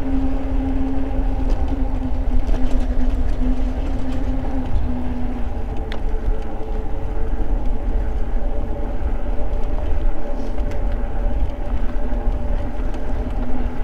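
Eahora Juliet e-bike riding along a paved trail: wind rushing over the microphone and tyre noise make a heavy low rumble, under a steady motor whine. The lowest whine tone drops away about five seconds in and comes back near the end.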